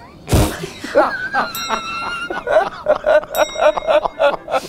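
Men bursting out laughing: a sudden explosive laugh, then a high giggling 'hehehehehe' in quick pulses, about five a second.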